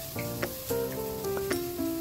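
Background music of steady, changing notes, over a faint sizzle of sliced onions and dried chillies frying in oil in a wok as they are stirred.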